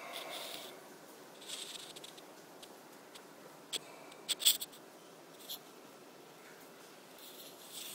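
Quiet indoor room tone broken by brief rustling and a cluster of sharp clicks about halfway through, the loudest near the middle. It is handling noise from a handheld phone camera and the clothing against it.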